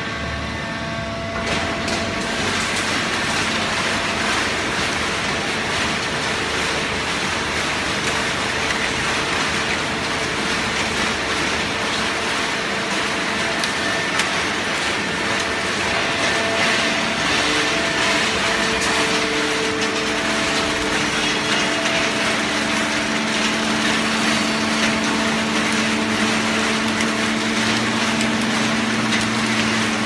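Fully automatic horizontal hydraulic waste paper baler running: a steady hum from its hydraulic power unit over a loud, even mechanical noise. The hum grows stronger in the last third.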